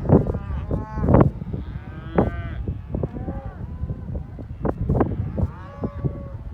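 A herd of cattle mooing and bawling, several animals calling over one another in drawn-out calls, with scattered knocks and a low rumble underneath.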